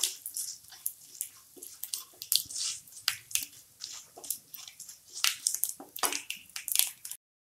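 Whole spice seeds (cumin, carom, mustard and fennel) crackling in hot oil in a kadai as a spatula stirs them, giving irregular sharp pops and light scraping over a faint sizzle. The tempering is frying to the crackling stage. The sound drops to a short dead silence near the end.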